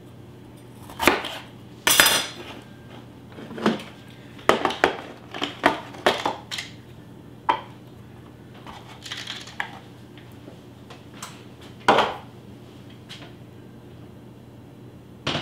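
Kitchen knife knocking on a wooden cutting board as bell peppers are cut, mixed with the clink and clatter of utensils and dishes. The knocks come one by one at irregular times, not as steady chopping. The sharpest, ringing clink comes about two seconds in and another loud knock near twelve seconds.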